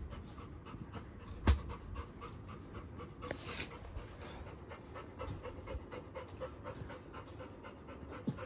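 Yellow Labrador retriever panting steadily, several quick breaths a second. There is a single sharp click about a second and a half in and a short hiss a little after three seconds.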